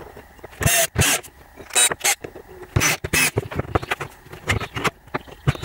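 Irregular knocks, clicks and scrapes of small hardware and a jigsaw being handled and set down on a wooden benchtop.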